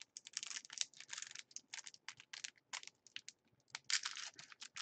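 Foil trading-card pack wrapper crinkling and tearing as hands pull it open, in quick irregular crackles with a denser burst near the end.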